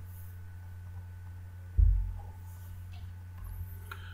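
Steady low electrical hum, with a single dull thump a little under two seconds in and a few faint clicks.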